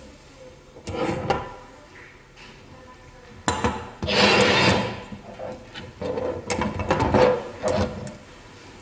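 Stainless steel garlic presses being handled on a wooden table: sharp metal clicks and knocks as the handles are opened and set down, with a brief scraping rub about halfway through.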